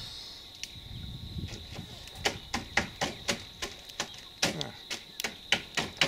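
Steady high-pitched insect chirring, with a run of sharp clicks coming three to four a second through the second half.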